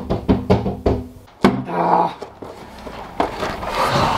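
Music with a quick, steady drum beat that cuts off about a second in, followed by a single sharp thump. Quieter breathy noise follows.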